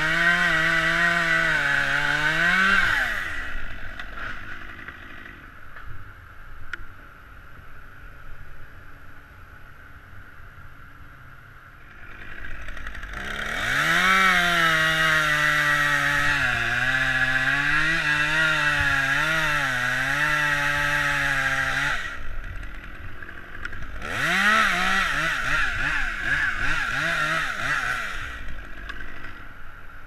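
Stihl two-stroke chainsaw at high revs, dropping off about three seconds in. After a quieter stretch it is revved up again and held, its pitch wavering and dipping as it cuts through a dead limb, then released, and revved in short blips near the end.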